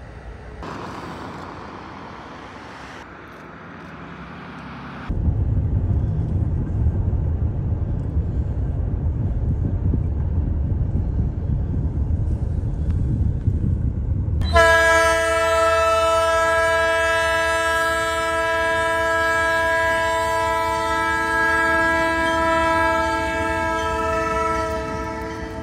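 Diesel locomotive engines rumbling low and loud as the train moves. About fifteen seconds in, a multi-chime train air horn starts: one long unbroken blast of several tones at once, lasting about ten seconds, the loudest sound here, given as the lead locomotive reaches a road crossing.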